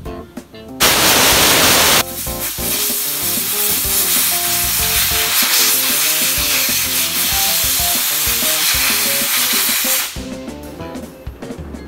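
Compressed-air blow gun hissing as it blows out a VVT oil control valve filter screen. It opens with a loud full blast of about a second, then runs as a steady, slightly quieter blast and cuts off about ten seconds in.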